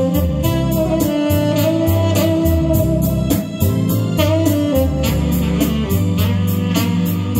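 Tenor saxophone playing a slow melody, holding long notes and sliding between them, over a recorded backing track with a steady beat and guitar.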